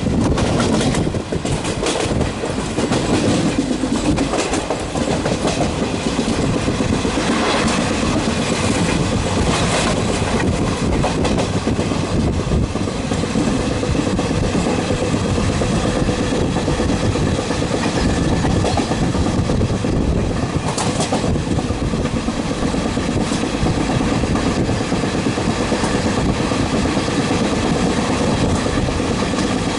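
A passenger express train passing close by at speed as it accelerates, its coaches rolling past with a steady loud rush and the clickety-clack of wheels over rail joints.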